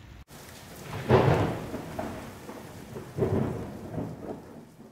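Steady rain with two rolls of thunder, the first about a second in and the second a little after three seconds, each swelling and dying away.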